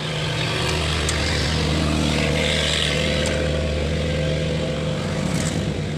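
Car engine idling steadily, with a broad hiss laid over it from about a second in until near the end.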